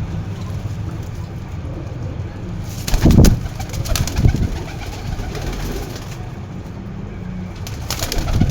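Pigeons cooing over a steady low background, loudest about three seconds in.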